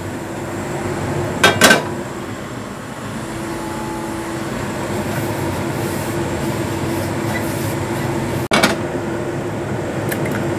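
Steady rumble with a low hum from a lit gas stove burner running on a high flame. A couple of brief clinks come about a second and a half in, and a sharp knock about two seconds before the end.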